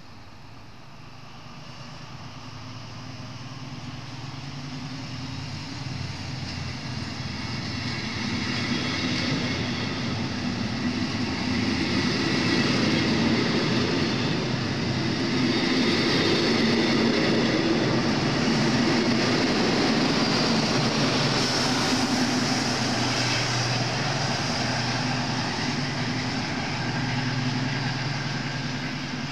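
Class 219 diesel-hydraulic locomotive pushing a regional train past, its engine under power and growing steadily louder as it draws near, with rolling noise from the coaches; loudest as the locomotive passes, then easing off near the end.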